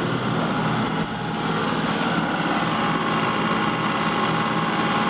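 Boat engine running steadily under way, a constant drone with a low hum and a faint steady whine, heard from on board.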